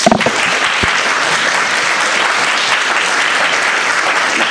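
Audience applauding at the end of a talk. The clapping starts all at once and holds steady and dense.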